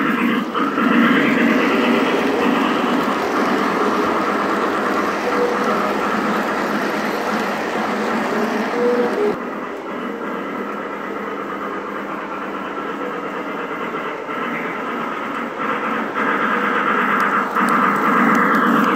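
O-scale model passenger train rolling on layout track: the heavyweight passenger cars run past close by with a steady rumble and fine rail clatter. The sound drops off sharply about halfway through, then builds again as the MTH C&NW H-1 locomotive draws near at the end.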